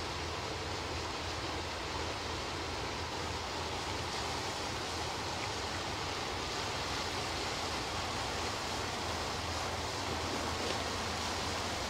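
Steady splashing of water pouring from a cargo ship's hawse pipes, the anchor wash-down streaming over the anchors into the canal, with a low steady hum underneath.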